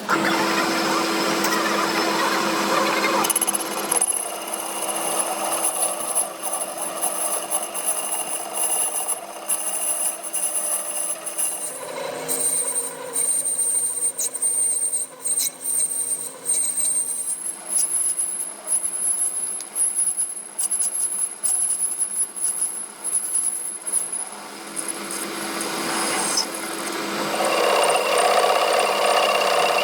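Power tools working on steel, running steadily with a high whine, in several short sections that change abruptly.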